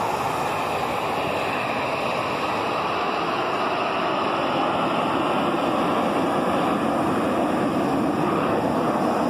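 Steady rushing roar of the Snowbirds' nine CT-114 Tutor jets flying in formation, blended with breaking surf and wind on the microphone.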